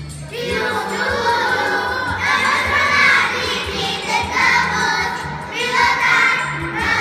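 A group of young children singing together over musical accompaniment.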